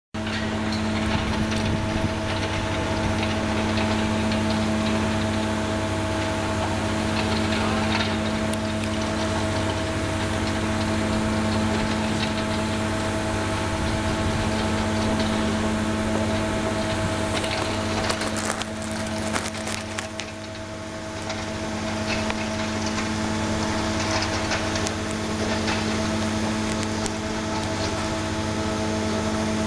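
CAT 301 mini excavator's diesel engine running at a steady pitch while its concrete milling head (Betonfräse) grinds into concrete. The grinding briefly eases about twenty seconds in.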